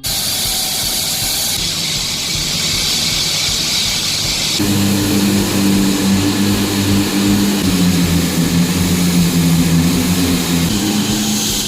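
Concrete floor saw with a diamond blade running at a loud, steady level, its engine hum and the cutting noise continuous. About halfway through the sound changes abruptly to a lower, steadier engine hum, which shifts pitch slightly twice.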